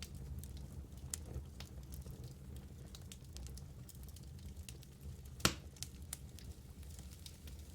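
Fire burning in a fireplace, with a steady low rumble and many small sharp crackles. One louder pop comes about five and a half seconds in.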